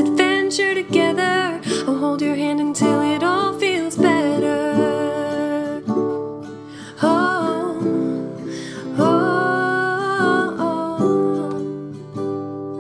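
Acoustic guitar plucking and strumming a gentle song with no lyrics in this stretch; a few held, gliding notes in the middle sound like a wordless vocal line.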